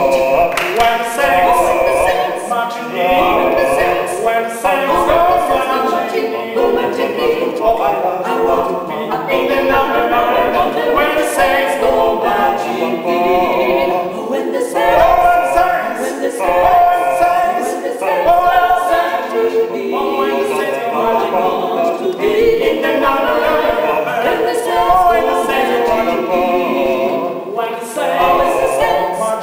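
Five-voice mixed a cappella ensemble, three women and two men, singing in harmony without accompaniment, phrase after phrase.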